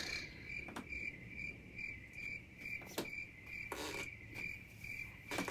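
A cricket chirping in the room: a faint, steady high trill with regular pulses, about two or three a second. A few soft clicks and brief rustles sound over it.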